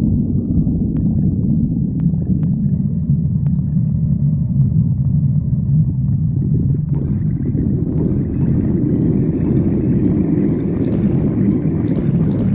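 Stomach growling: a continuous low rumble that fills out and rises in pitch about seven seconds in, with a few faint clicks in the first few seconds.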